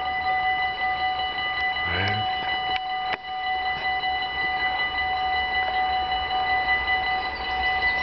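Level-crossing warning bells ringing steadily with a fast, even ticking beat, signalling that the barriers are down for an approaching train. A short sound rising in pitch cuts in briefly about two seconds in.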